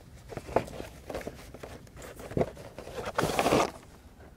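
Engine air filter being slid out of its cardboard box: a few light taps and scrapes, then a longer, louder scrape of cardboard against the filter frame about three seconds in.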